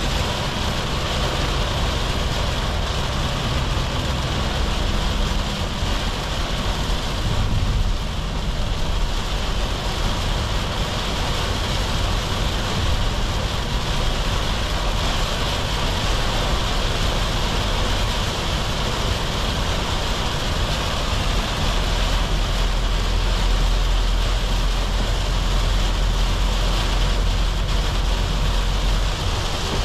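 Inside the cab of a Volkswagen Caddy with a 2.0 TDI four-cylinder diesel, driving in heavy rain. The engine hums low under a steady hiss of tyres on the wet road and rain on the body, and the engine note shifts a couple of times.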